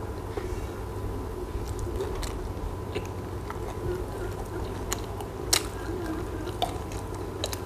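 Close-miked chewing of a crisp fried snack, with scattered sharp crunches and clicks, over a steady low background hum. A metal spoon scoops sauce from a glass bowl near the middle.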